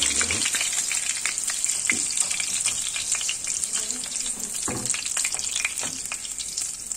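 Tuna chunks frying in butter and oil in an enamel pot, a steady sizzle with constant crackling spatter. A spatula scrapes and knocks against the pot a few times.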